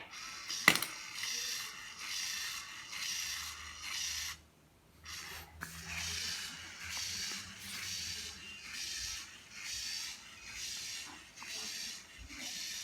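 Small toy robot built from an OLLO kit, its geared motor driving the legs in a rhythmic, scraping cycle of about one and a half strokes a second. There is a sharp click about a second in and a short stop around four seconds in.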